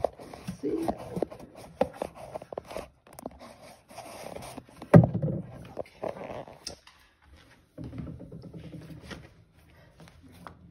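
Handling and rummaging noises: rubbing, scraping and scattered knocks, with one loud thump about five seconds in, quieter toward the end.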